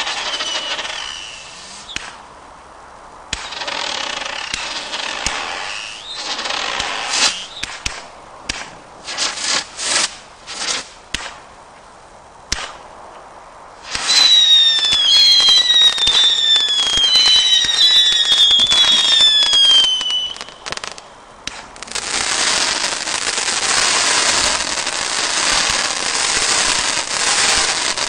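Single-ignition firework cake (Party Box Platinum) firing. At first come scattered bangs and bursts of crackle. From about halfway, several whistling shots fall in pitch for some six seconds, and then a long stretch of dense crackling follows.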